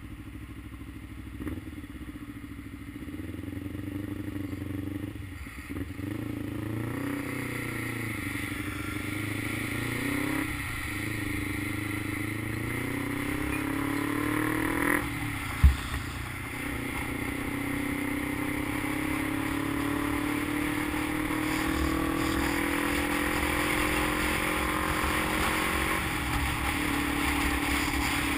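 Motorcycle engine pulling away and running up through the gears: its pitch climbs in each gear and drops at each shift, three times. Wind and road noise run underneath, and a single sharp thump comes about halfway through.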